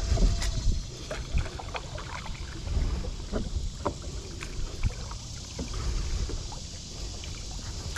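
Kayak paddling: the paddle blades dip and splash, with water dripping and small knocks scattered throughout, over a low wind rumble on the microphone.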